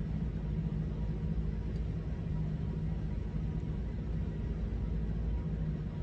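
Steady low rumble with a faint hum: unbroken background room noise, with no distinct events.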